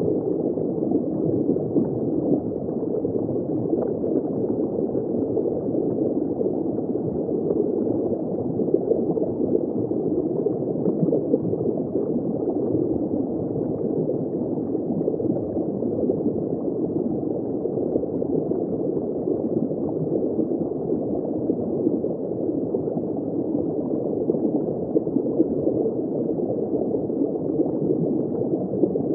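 Underwater ambience from a shallow hydrophone perspective: steady, muffled bubbling and water flow, without distinct events.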